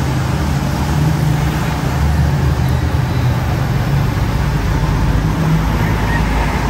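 Steady road traffic noise from cars passing on the street, a continuous low engine hum with tyre noise over it.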